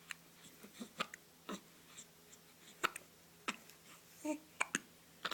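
Faint hiccups: short, sharp catches at uneven intervals, one about four seconds in carrying a brief voiced squeak.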